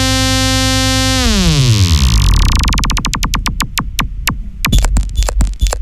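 Serum synthesizer saw-wave bass held as a steady buzzing tone, then swept down in pitch about a second in. It ends at the synth's lowest pitch, where the single wave cycles are heard as separate clicks. From about five seconds in these turn into a rhythmic run of clicks and deep bass thumps.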